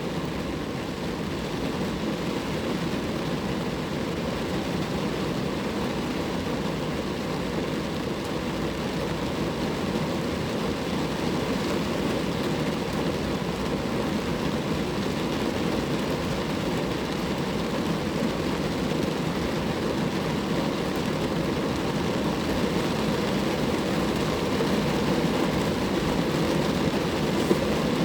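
Steady rain falling on a car, a dense even patter that builds slightly louder over the stretch.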